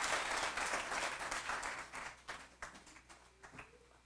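Audience applause dying away: a dense clapping thins to a few scattered claps by about three seconds in and fades out near the end.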